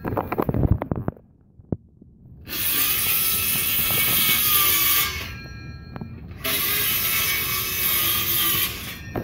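A rabbit chewing a strawberry right against the microphone. There are quick crunching clicks in the first second, then, after a short lull, two long stretches of loud scratchy rasping, each a few seconds.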